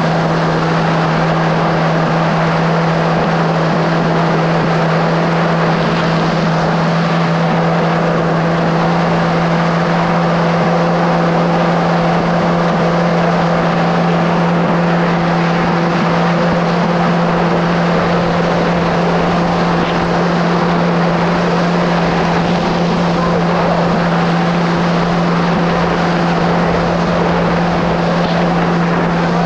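Kawasaki SX-R 1500 stand-up jet ski's four-cylinder engine running at a steady, unchanging high pitch while the ski cruises at speed. A constant rush of water spray runs underneath.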